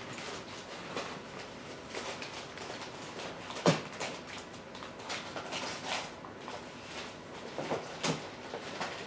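Christmas wrapping paper crinkling and tearing as small dogs nose and chew at presents on a hardwood floor, with scattered light knocks and one sharp thump a little before halfway.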